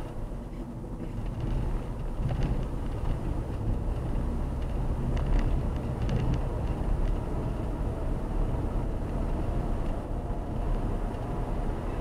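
Steady low rumble of a car's engine and tyres on the road, heard from inside the moving car's cabin.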